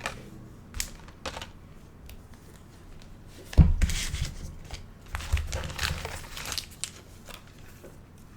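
Foil trading-card pack torn open and its wrapper crinkled. A few light clicks come first, then a thump about three and a half seconds in, followed by a few seconds of crinkling.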